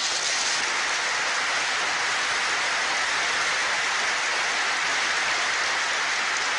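Large hall audience applauding: a dense, steady clapping.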